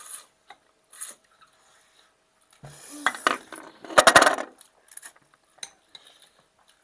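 People eating noodle soup at the table: noodles slurped from the bowls and forks and spoons clinking against the bowls, loudest about three to four and a half seconds in.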